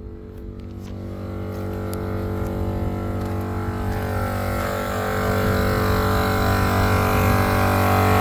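Morrflate 10.6 Pro 12-volt air compressor running steadily while it fills four tires at once through a common manifold. Its even hum grows gradually louder.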